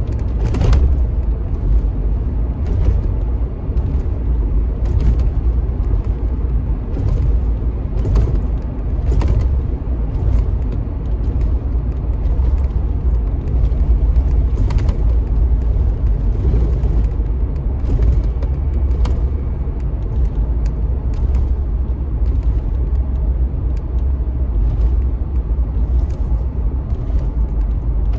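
Steady low rumble of a car driving, heard from inside the cabin, with frequent irregular light clicks and knocks over it.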